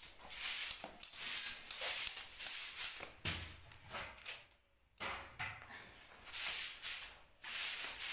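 Hand broom sweeping a floor: quick repeated brushing strokes, two to three a second, breaking off briefly about halfway through.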